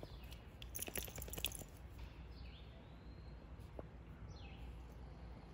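A short run of crunching clicks about a second in, then a few faint, high chirps.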